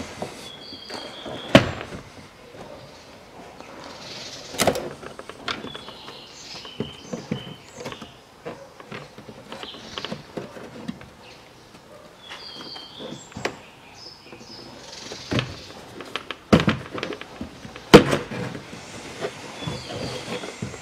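Plastic clicks, knocks and snaps as the plastic inner door module panel of a Range Rover Evoque front door is worked loose by hand. The sharpest snaps come about a second and a half in, near five seconds, and twice near the end.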